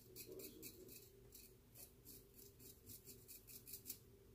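Faint, short scraping strokes of a razor blade drawn across a lathered scalp during a head shave, about three or four strokes a second.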